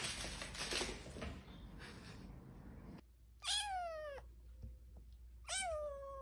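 Scuffling and small knocks as a kitten plays with a toy on a hard floor, then two high-pitched kitten meows, each under a second and falling in pitch, the first about halfway through and the second near the end.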